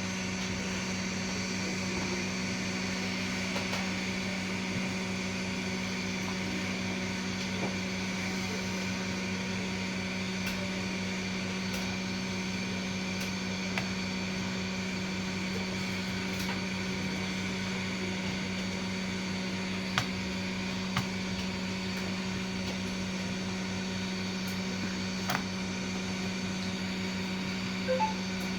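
Hot air rework station's blower running steadily with a low hum, heating the solder joints of a VGA port to desolder it from a circuit board. A few small clicks of tools touching the board sound near the end.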